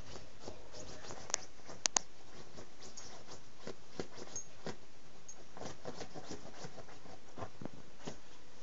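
Small dog burrowing and nosing into a pillow: scratchy rustling of the fabric in many short clicks, a few sharper ones about one and a half to two seconds in.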